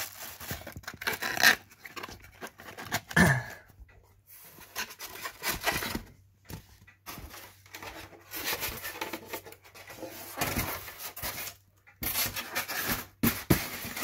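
Plastic wrapping rustling and a cardboard box with polystyrene packing being handled as fan parts are packed back in, in irregular bursts with a couple of sharper knocks in the first few seconds.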